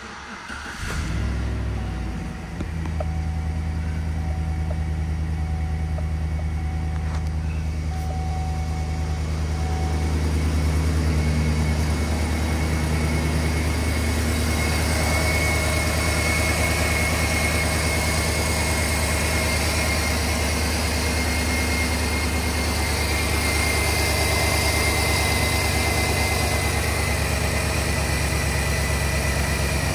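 2010 Chevy Silverado 1500's 5.3L V8 engine starting, catching within the first two seconds and settling into a steady idle. A thin steady high whine runs through the second half.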